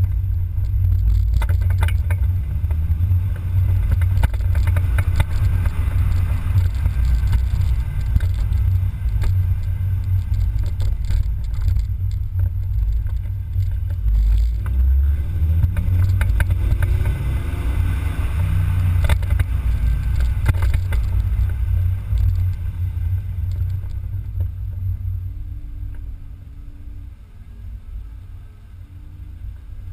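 Driving noise from a BMW Z3 roadster recorded at its front end: a heavy low rumble of wind and road noise with scattered light rattles, and the engine note rising and falling about halfway through. The sound quietens over the last few seconds as the car slows.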